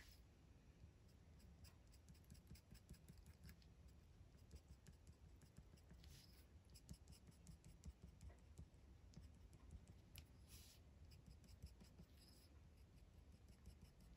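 Faint scratching of a colored pencil drawn over textured paper in many short strokes.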